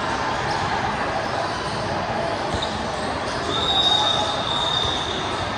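Basketball game in a gym: a steady hubbub of play with a ball bouncing. About three and a half seconds in, a high steady tone sounds for over a second.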